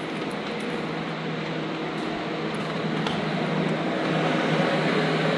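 Portable drying blowers (air movers) running steadily, a rush of air with a low motor hum, growing slowly louder. They are drying out a flooded basement.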